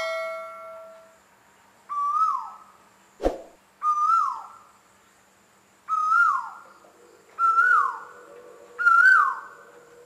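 A crow cawing five times, about every one and a half to two seconds, each caw rising and then dropping in pitch. A single sharp knock comes between the second and third caws.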